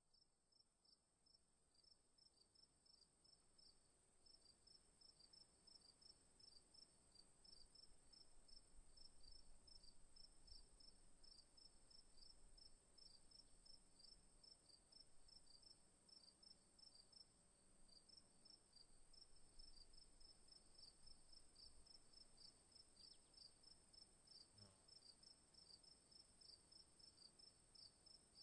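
Crickets chirping faintly: a steady high trill with a rapid, evenly pulsed chirping just below it, fading in over the first several seconds.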